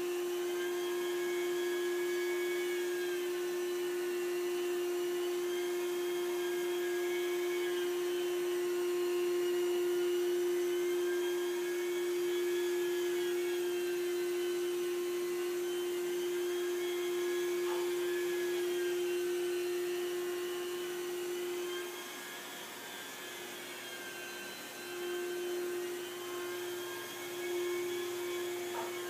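Rotary carpet-cleaning extraction head (Rotovac) working across carpet, with the steady whine of the cleaning machine's vacuum. Higher tones slowly rise and fall every few seconds as the head moves, and the sound drops briefly about 22 seconds in.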